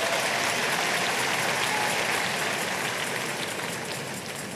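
A large congregation applauding, the clapping gradually dying down toward the end.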